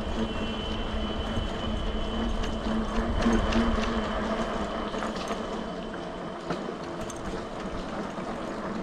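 Steady rumbling road and wind noise of a bicycle being ridden, with a held low hum and scattered light mechanical clicks.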